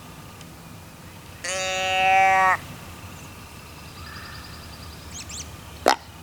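A hunter's game call sounded once: one steady, pitched note about a second long that grows louder before stopping abruptly. A brief, sharp downward-sweeping sound comes near the end.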